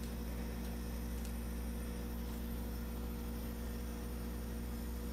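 A steady low electrical hum made of several fixed tones, with a faint hiss and no other clear sound.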